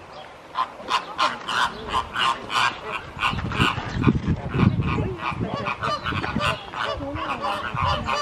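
A flock of flamingos honking: many short calls overlapping, several a second, with a low rumble in the middle.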